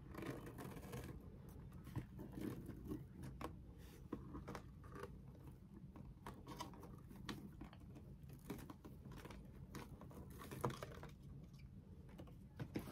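A box and its packaging being handled by hand: faint, irregular rustling with small clicks and taps.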